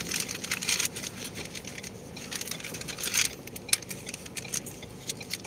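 Street ambience with a steady low hum, overlaid by many irregular crackling clicks from a handheld phone microphone being moved about.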